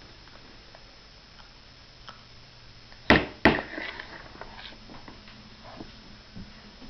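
Two sharp knocks about half a second apart, a toddler's fork and hand striking a plastic high-chair tray, followed by a few fainter taps.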